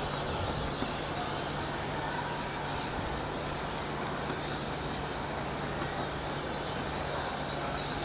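A large flock of birds calling overhead, many short high chirps overlapping, over a steady low hum of city traffic.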